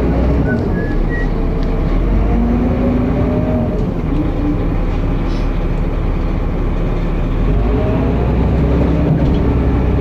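Dennis Arrow bus heard from on board while driving: the diesel engine and ZF automatic gearbox run loud with a deep rumble and whines that rise and fall several times. The bus is known for over-revving and thrash from a slipping ZF gearbox.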